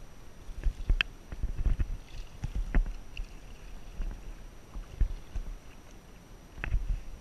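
Kayak paddle strokes in lake water: rhythmic dips and splashes with a sharp knock about every two seconds, four in all, over low rumbling surges.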